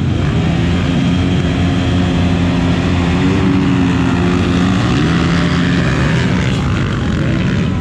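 Off-road racing motorcycle engines running hard in a steady drone, the pitch rising a little in the middle and easing off near the end.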